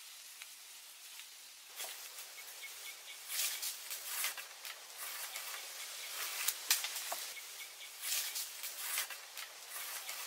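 Rustling and crunching in dry leaf litter from a person moving about while handling a wooden pole, with a few sharp clicks and knocks. The rustling starts about two seconds in, over a faint steady insect hiss.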